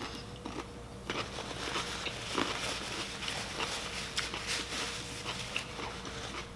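Close-miked eating sounds: chewing with a dense run of small clicks and crackles from handling the food, starting about a second in and lasting about five seconds.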